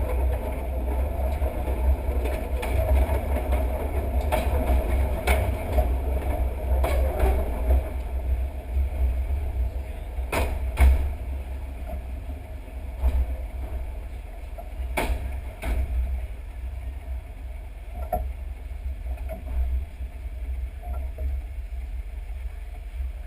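Running noise of a moving electric train picked up by a microphone mounted outside the train: heavy wind buffeting and low rumble, with sharp clacks at irregular intervals from the wheels crossing rail joints. It gets a little quieter after about the midpoint.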